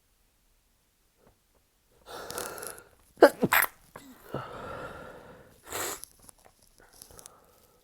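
A person stifling sneezes in an allergic sneezing fit: after a breathy build-up, a sharp stifled sneeze with a squeaky catch about three seconds in is the loudest sound, followed by breathy noise and another short burst near six seconds.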